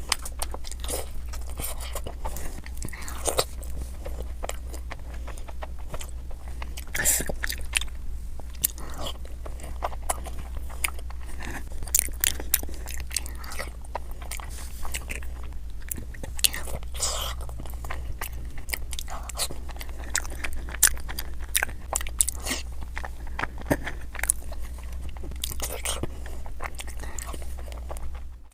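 Close-miked eating of Indian sweets: a steady run of bites, crunches and chewing with many sharp crackly strokes.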